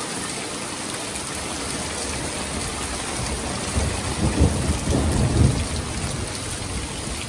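Torrential rain pouring down and splashing on a shingled roof, a steady hiss. A roll of thunder rumbles in about four seconds in and lasts about two seconds, following a lightning flash.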